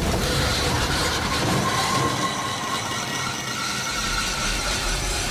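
Fire burning steadily in an overturned car after its fuel cans have exploded: a dense, continuous rush of noise with a low rumble that eases off for a couple of seconds in the middle.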